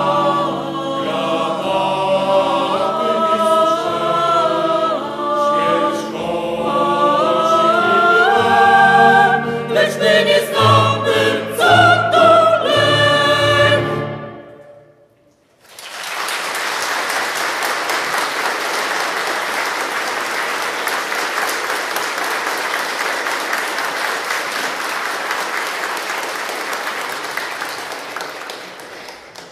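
Mixed choir of men's and women's voices singing a sacred piece in a church, ending about halfway through. After a short pause, an audience applauds steadily until near the end.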